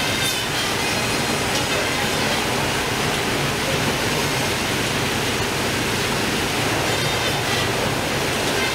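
Baader 444 heading and gutting machine running while processing fish: a steady, even din of machinery mixed with a hiss like running water.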